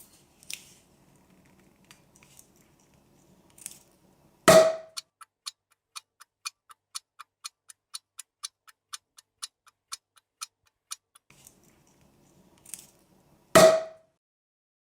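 Even mechanical ticking, about two ticks a second for several seconds. It falls between two loud, sharp knocks that each ring briefly, with faint rustling before each knock.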